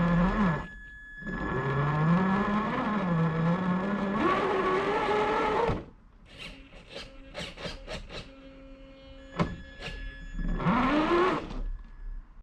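RC car's electric motor whining as it is driven in short spells, its pitch rising and falling with the throttle. In a quieter stretch in the middle come a few sharp clicks and knocks.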